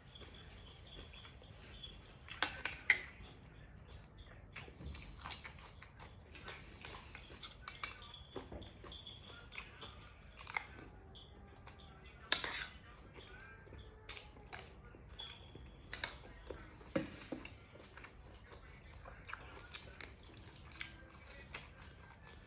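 A person eating close to the microphone: chewing and crunching bites of food, with irregular sharp clicks and crackles, the loudest about two and a half seconds in and again about twelve seconds in.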